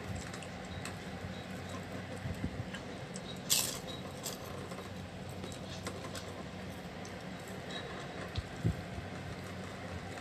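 Quiet eating sounds of chicken noodle soup: a ceramic spoon and fork working in a ceramic bowl, with sipping of broth and small clicks and soft knocks, and one short sharp sound about three and a half seconds in. A steady low hum sits underneath.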